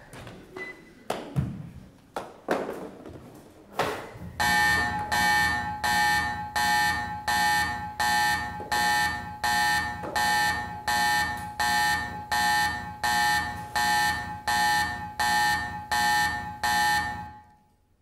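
A few knocks, then an electronic alarm buzzing in loud repeated pulses, about three every two seconds, for some thirteen seconds before it cuts off suddenly.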